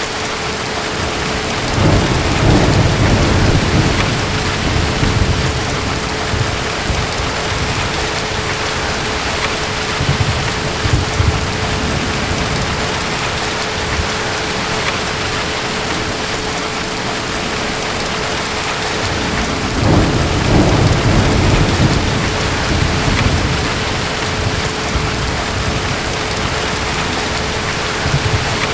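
Steady rain of a night thunderstorm, with deep distant thunder rumbling under it, swelling most strongly twice: a couple of seconds in and again about two-thirds of the way through.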